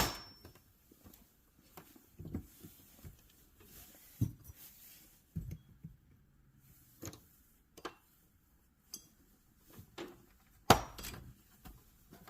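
Large metal wrenches clinking and clanking as they are handled and set into a toolbox wrench organizer, a scatter of knocks and clicks with short metallic ringing; a sharp clank at the very start and another loud one near the end.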